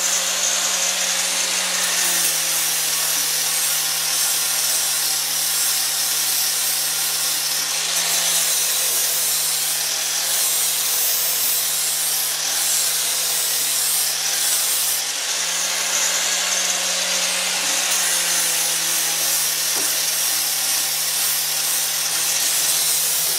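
Electric angle grinder with a flap disc running continuously, grinding steel tubing with a steady motor hum over a dense hiss. The pitch shifts slightly now and then as it is worked along the metal.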